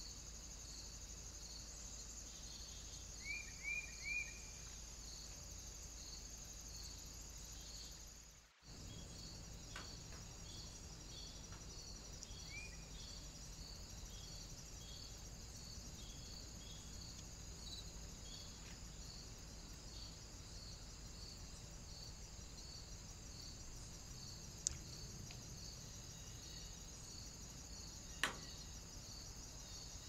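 Field insects such as crickets stridulating: a steady high buzz with a regular chirp repeating about once or twice a second. Three quick rising chirps come about three to four seconds in, and another near thirteen seconds. Two sharp clicks come near the end.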